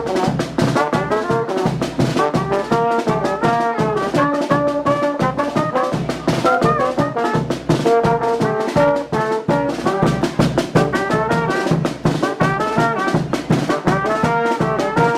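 Brass band music for Carnival: trumpets and trombones playing a busy, moving melody over a fast, steady drum beat.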